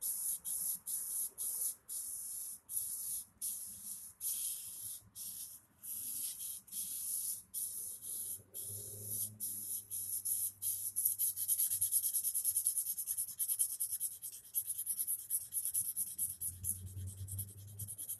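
Hand-held sharpening stone stroked back and forth across an axe's edge, each stroke a gritty hiss. The strokes come about one to two a second at first, then turn into quick, short strokes from about eleven seconds in, working only the very edge rather than the full length of the blade.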